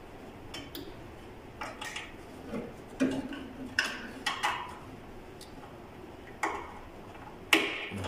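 Scattered light clicks and taps of wire connectors and test leads being handled at a microwave oven's transformer wiring, irregular, with the sharpest click near the end.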